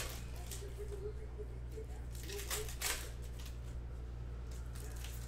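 Trading cards and pack wrappers being handled: a few short rustling, sliding swishes, strongest around two and a half seconds in, over a low steady hum.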